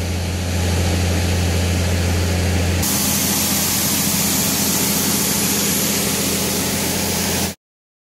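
Dry shelled corn pouring from a grain wagon's door into the hopper of a PTO-driven 8-inch auger: a steady rushing hiss over the hum of the tractor engine running the auger. About three seconds in the sound changes abruptly and the grain hiss becomes louder and brighter. It cuts off just before the end.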